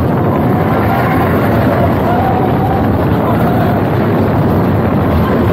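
Mine-train roller coaster running fast along its track, a steady loud rumble mixed with wind rushing over the microphone.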